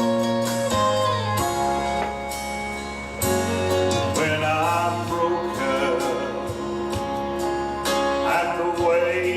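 Country gospel music: an instrumental interlude between verses of a song, with sustained held chords and a wavering melody line coming in partway through.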